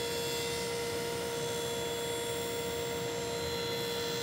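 Table saw running steadily at speed with a constant whine while a wooden frame piece is fed through it on a miter gauge for a 45-degree miter cut.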